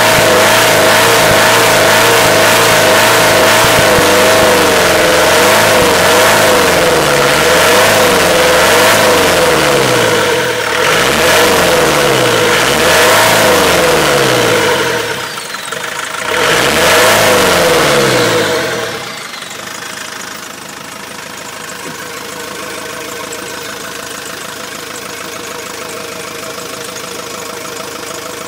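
Land Rover 300Tdi four-cylinder turbodiesel running and being revved up and down repeatedly. About nineteen seconds in it drops back to a steady idle.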